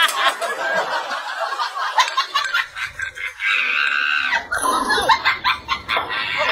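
Women laughing and giggling, with short clicks mixed in.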